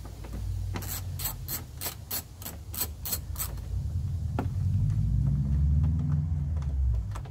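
Socket ratchet clicking about three times a second as a 10mm headlamp mounting bolt is turned out. In the last few seconds a louder low rumble swells and fades.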